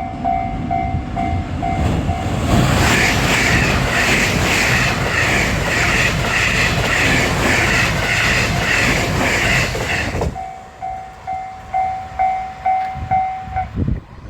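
Japanese level crossing warning bell ringing in steady strokes, drowned out for about eight seconds by a JR West 223 series electric train rushing through with a regular clatter of wheels over the rail joints. The train noise cuts off suddenly, the bell rings on alone, then stops shortly before the end.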